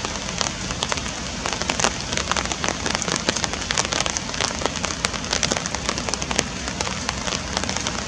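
Rain falling on a pond's surface: a steady hiss dotted with frequent sharp ticks.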